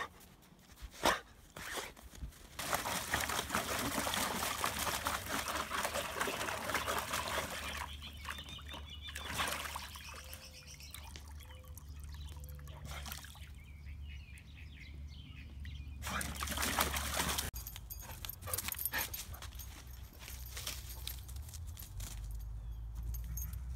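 Water pouring from a garden hose into a plastic tub of water, a steady rushing noise that stops and starts again.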